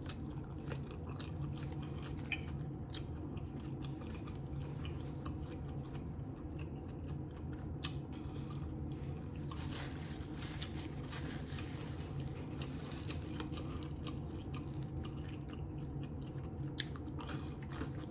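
A person chewing food close to the microphone, with small wet clicks and crunches, over a steady low hum.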